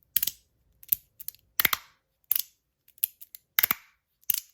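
Magnus Rail 2.0 magnetic fidget slider, fitted with a Teflon plate and with its O-rings removed, being slid back and forth. Its plates snap across with sharp clicks, about one to two a second.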